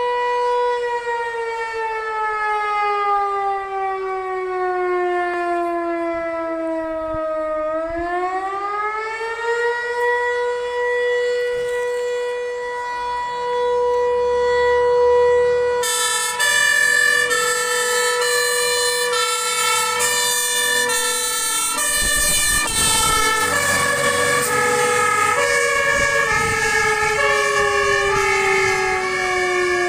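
A fire-station alarm siren wails. It falls slowly in pitch, winds back up to a steady tone and holds it, then winds down near the end. About halfway through, a fire engine's electronic siren starts, switching back and forth between tones, and a heavy truck rumble joins a little later as the engine moves off on an emergency call.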